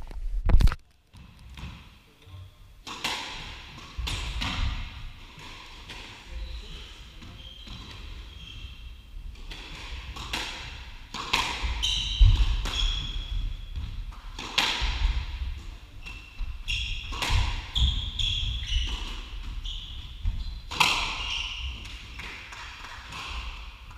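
Squash rally: the ball cracking off racquets and the court walls every second or two, with short high squeaks from shoes on the wooden floor between the shots.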